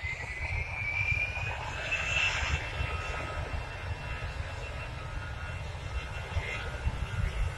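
AirAsia Airbus A320's jet engines spooling up for takeoff: a whine rises in pitch over the first two seconds, then holds as a steady high whine over a low, gusty rumble.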